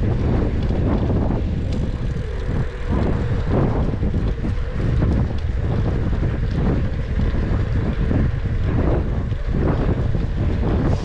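Wind buffeting the microphone of a moving bicycle, a steady low rumble with uneven gusts.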